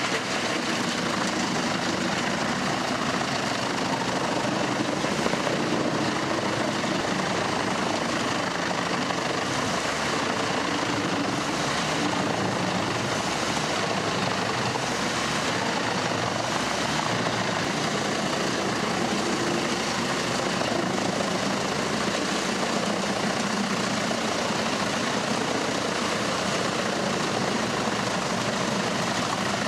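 Industrial drum wood grinder running continuously, its engine and high-speed cutter drum making a steady, dense machine drone as wood is chipped.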